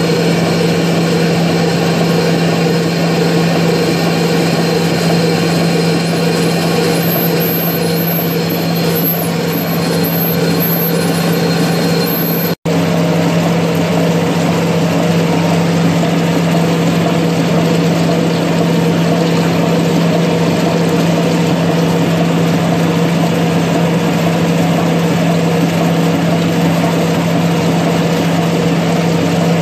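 Large lathe running with its chuck turning and flood coolant spraying onto the workpiece: a steady low hum under a constant hiss. The sound cuts out for an instant about twelve seconds in.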